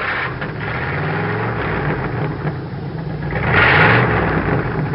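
An engine running and being revved, its pitch rising and falling, with a louder surge about three and a half seconds in.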